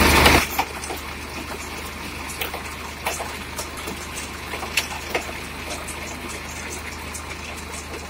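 Massey Ferguson 7250 tractor engine running steadily, driving a Redlands round baler through its PTO shaft, with scattered light clicks and rattles from the baler's chains and rollers. A brief loud rush comes right at the start.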